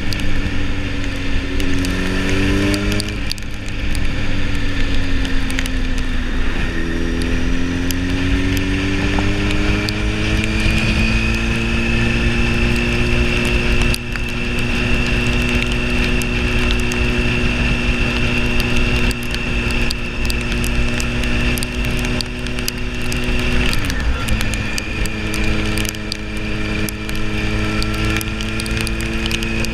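Motorcycle engine running on the move. Its pitch rises and then drops about three seconds in, climbs again, holds steady for a long stretch, and dips once more near twenty-four seconds. Wind rumble sits underneath throughout.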